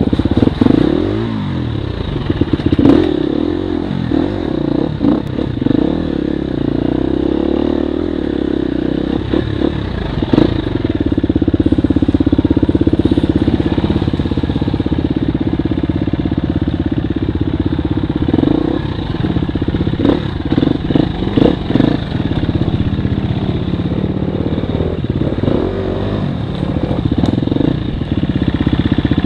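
Off-road dirt bike engine running under the rider, the revs rising and falling with the throttle, with repeated knocks and clatter as the bike rides over rocks and roots.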